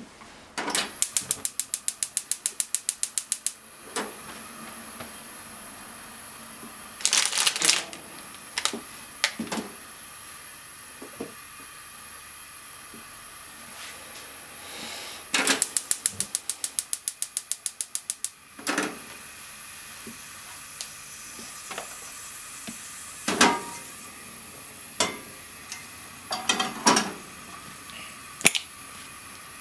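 Gas stove igniter clicking rapidly, about eight clicks a second for roughly three seconds, twice, as the burners are lit. A few scattered knocks and clatters come in between.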